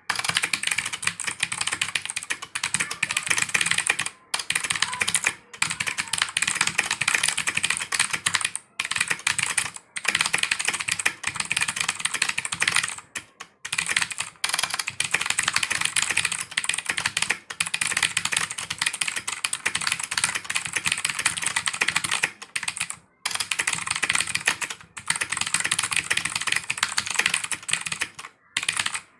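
Fast continuous typing on a GAMDIAS mechanical keyboard: a dense run of key clicks, broken by short pauses every few seconds.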